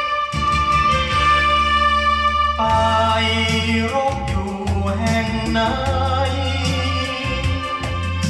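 Thai song played back from a vinyl record: held sung notes over an instrumental backing, with no break.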